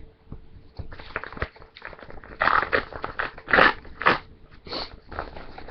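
A parcel being opened by hand: packaging crinkling and tearing in irregular rustles and rips, with a run of louder rips about halfway through.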